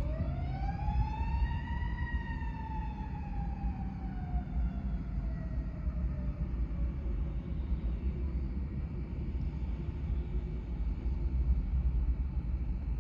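A siren with a pitch that rises for about two seconds, then slowly falls and fades, over a steady low rumble.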